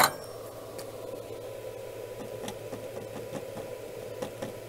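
Steady background hum with a sharp click at the start and a few faint light taps as flux is dabbed onto the ESC's solder pads.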